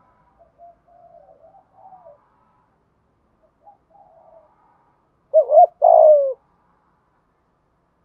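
Spotted dove cooing: a few faint, low coos in the first half, then one loud two-part coo about five seconds in, its last note sliding down.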